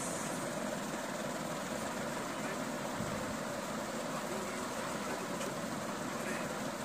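Steady background noise, an even hiss and rumble with no distinct events.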